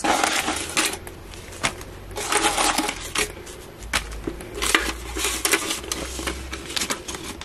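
A hand rummaging in a cardboard savings tin: polymer banknotes rustling and loose coins clinking against one another, in an uneven run of rustles and sharp clicks.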